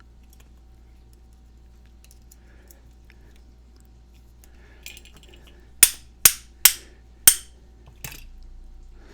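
Hammer striking a Master Lock 220 padlock to knock a part out of it: four sharp metallic taps about half a second apart, then a lighter fifth one, after a quiet stretch.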